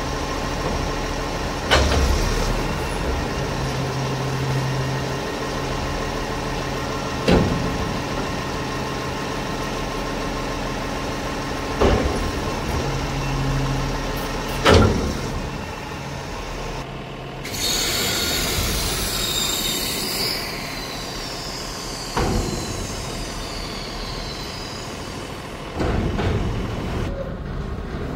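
A Cummins ISL9 diesel runs steadily while the hydraulic side-load arm of a Kann garbage body cycles, with sharp metal clanks every few seconds as the arm moves and stops. A few seconds past the middle comes a hiss of air lasting about three seconds.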